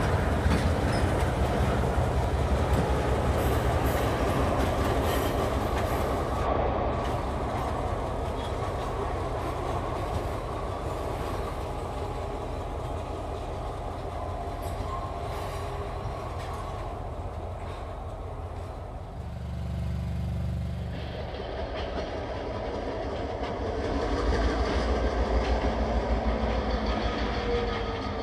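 Diesel-electric road-switcher locomotive running slowly past with tank cars, its engine rumbling and the cars rolling over the rails. The sound gets louder again near the end as the locomotive comes closer.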